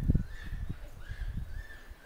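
Japanese macaque giving a warning cry: short, high calls repeated about twice a second, each rising quickly then levelling off. Low thumps of handling noise on the microphone, loudest at the very start.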